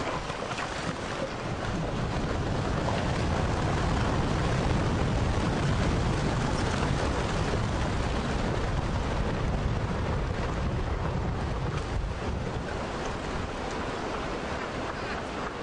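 Rockslide: rock and boulders falling from a cliff face onto a paved road, a dense rumble with a heavy low end that builds about two seconds in and eases off near the end.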